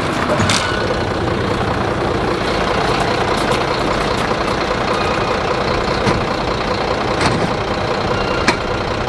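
A combustion engine running steadily, with a few sharp clicks and knocks over it.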